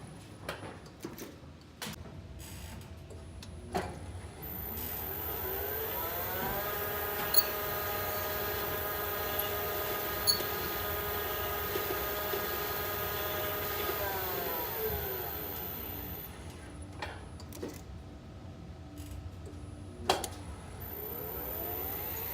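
Lift machinery running one trip. Its drive motor's whine climbs in pitch as the car speeds up, holds steady, then falls away as it slows. Clicks and knocks come before and after the run, with a sharp knock about 20 seconds in. The owner reports an unwanted brake noise, heard mostly at the start of the up move.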